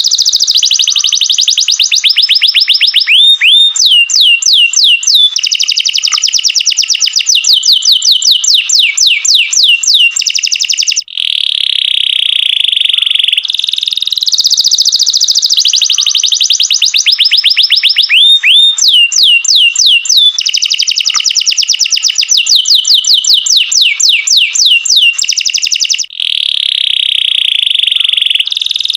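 Domestic canary singing a long, continuous high-pitched song of rolling trills and fast runs of sweeping whistled notes, with a brief break about eleven seconds in and again near the end.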